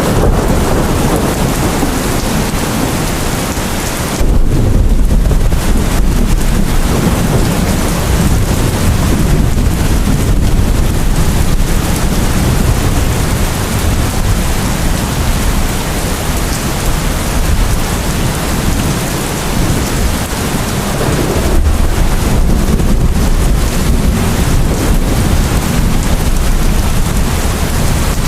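Steady heavy rain with rolling thunder: a low rumble swells suddenly about four seconds in and again past the twenty-second mark.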